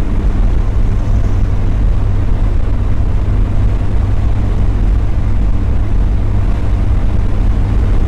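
Mazda Miata's four-cylinder engine and road noise while cruising: a steady, loud low drone with a constant engine tone. A slightly higher engine tone fades out about half a second in.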